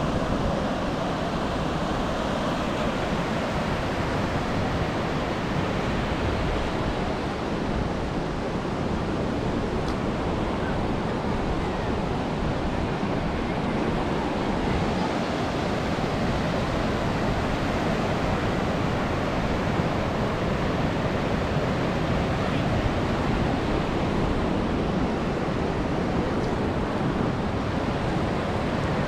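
Steady surf of ocean waves washing ashore, with wind on the microphone.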